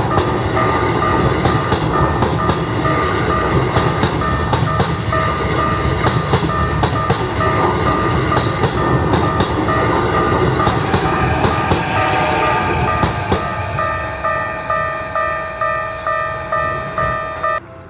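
Keikyu 1500 series electric train running over a level crossing, its wheels clattering over rail joints, while the crossing's warning bell rings at about two strikes a second. The train noise fades over the last several seconds, leaving the bell.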